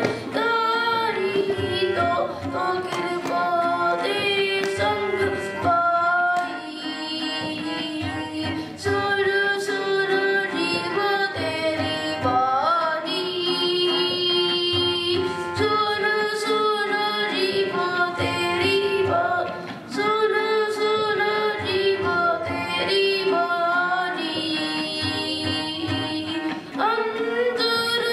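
A child singing a Sikh kirtan hymn to harmonium, with tabla accompaniment. The tabla keeps a steady rhythm under the held and wavering sung notes.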